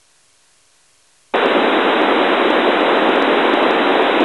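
FM radio receiver static on a weak satellite downlink. After about a second of near silence with the squelch shut, a steady, loud hiss cuts in suddenly, about a second and a half in, as the squelch opens on a fading, noisy signal.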